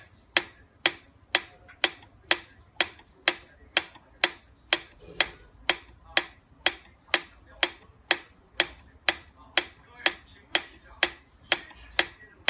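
Mechanical pendulum metronome ticking steadily, about two even ticks a second.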